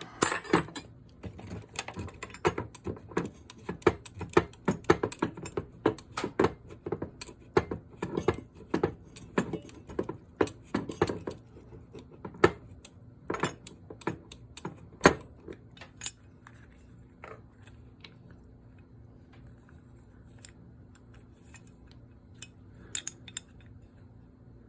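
Metal clicking and clinking of a 3/4-inch wrench working the nut that holds a spray gun's cup assembly, along with the metal parts knocking together: a quick, uneven run of clicks for about twelve seconds, then a few louder single knocks, then mostly quiet apart from a couple of clinks near the end.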